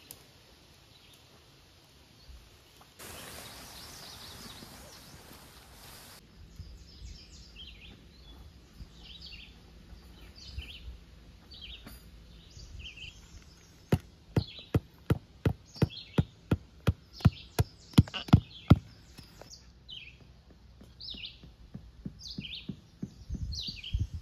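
Songbirds chirping in short, repeated notes in woodland, with a steady hiss for a few seconds near the start. Midway, a run of about a dozen sharp knocks, two or three a second, is the loudest sound.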